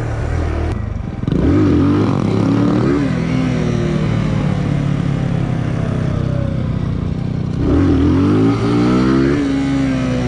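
125 cc single-cylinder motorcycle engine being ridden hard, revving up and down with the throttle. The pitch climbs sharply about a second in and again near the end, dropping back in between.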